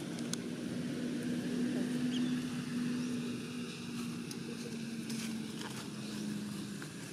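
A steady engine hum that drops slightly in pitch near the end, over low background noise with a few faint clicks.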